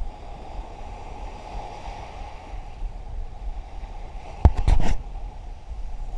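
Small waves lapping on a pebble shore, with wind rumbling on the microphone. About four and a half seconds in, a short quick cluster of sharp knocks stands out as the loudest sound.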